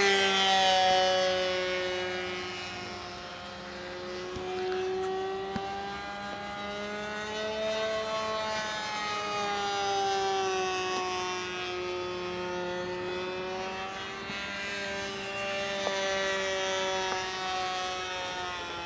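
RC model airplane's engine and propeller in flight, a steady drone whose pitch slowly rises and falls as the plane circles. Loudest at the start as it passes close, then fainter.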